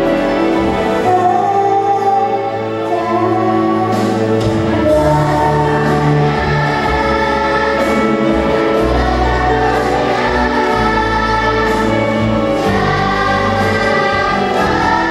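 Children's choir singing, with held low notes running underneath the voices.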